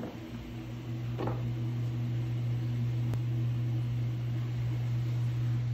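Washing machine running its rinse, a steady low mechanical hum that grows louder about a second in, while its water backs up at the basement floor drain.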